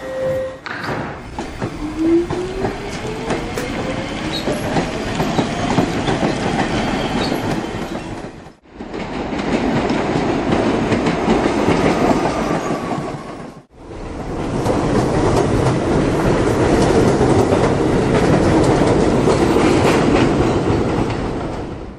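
Subway train running: a motor whine rising in pitch as it picks up speed, starting about two seconds in, over a steady rumble and wheel clatter on the rails. The sound breaks off abruptly twice, near the middle and again about two-thirds through.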